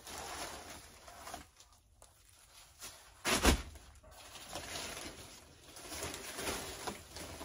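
Plastic wrapping and canopy wall fabric rustling and crinkling as they are handled and pulled out. About three and a half seconds in there is one loud, short brush or bump.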